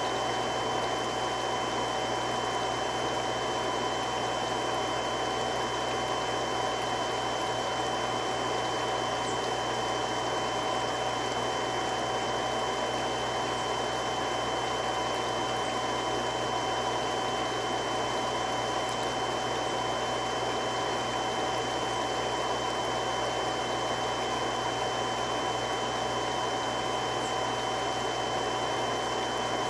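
Three-stage irrigation water pump running steadily: an even rushing noise with a few constant whining tones above it, unchanging throughout.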